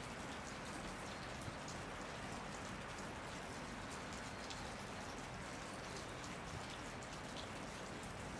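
Steady rain falling, with many single drops ticking through the even hiss.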